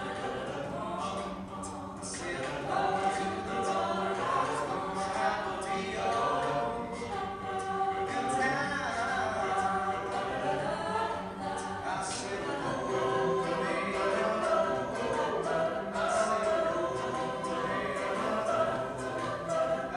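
Collegiate a cappella group of mixed men's and women's voices singing a song in several-part harmony, unaccompanied and amplified through stage microphones.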